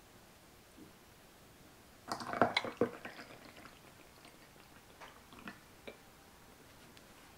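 Ceramic kettle and pour-over dripper clinking and clattering about two seconds in, followed by water being poured into the dripper. Then come a few light knocks of ceramic on the wooden table as the kettle is set down.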